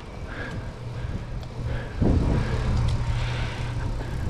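Wind rumbling on the microphone and tyres rolling on a concrete sidewalk as a 700c single-speed bicycle is ridden along, getting louder about two seconds in.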